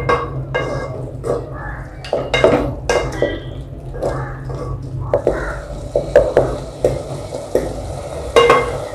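A spatula stirring and scraping a thick tomato-onion masala around a metal pot, with irregular scrapes and knocks against the pot, while ginger-garlic paste fries in the oil.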